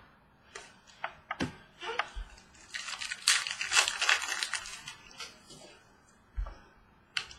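Trading cards and their packaging handled close up: rustling and crinkling with scattered light clicks and taps, busiest through the middle.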